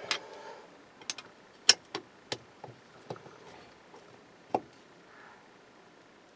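Screwdriver working the small screws of a distributor as they are tightened down: a string of irregular, sharp metal clicks and taps over the first five seconds, then quiet.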